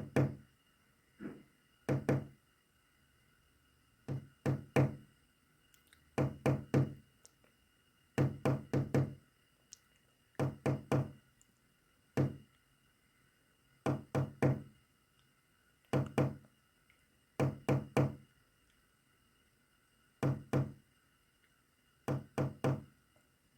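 Knocking tapped out as code: short groups of two to four quick knocks, with pauses of a second or more between groups.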